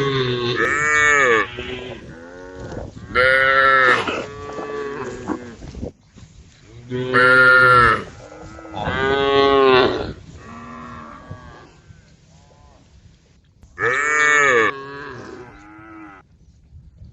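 Several cows mooing: loud, drawn-out calls every few seconds, answered by fainter moos in between, as the herd calls to one another.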